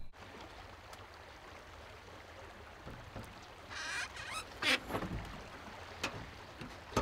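Soft rustling and a few light knocks and clicks from a person moving about on bedding and gear inside a pickup's camper shell. They start about halfway through, over a low steady background.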